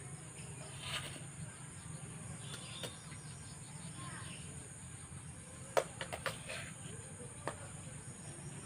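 A steel spoon clinks and scrapes against a steel bowl as cooked rice is served, with a few sharp clicks in quick succession about two-thirds of the way in and one more near the end. Under them is a quiet outdoor background with a steady low hum and a high hiss.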